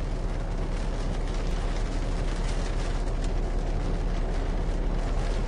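Steady low rumble of a tour bus heard from inside its cabin, with a deep hum and faint rattles and ticks.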